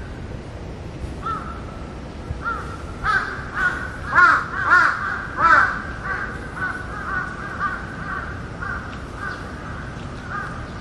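Crows cawing repeatedly. A cluster of loud caws comes a few seconds in, followed by a run of quicker, fainter caws.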